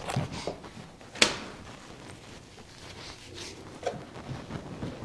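Rustling and handling noises, with one sharp knock or click about a second in and a few fainter clicks after it.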